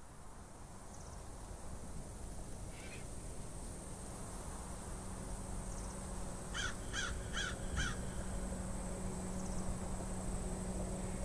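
Outdoor bird calls. A few faint high chips are followed by a run of about five short, harsh calls, evenly repeated at about four a second, about two-thirds of the way through.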